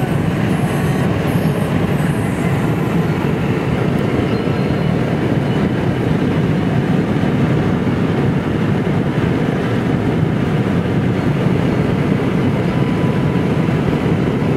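Steady road noise inside a moving car's cabin on the highway: a constant low rumble of tyres and engine.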